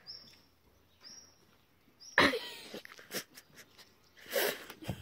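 Two loud, breathy puffs of air close to the microphone, about two and four seconds in, with a few short high chirps and scattered light taps like footsteps between them.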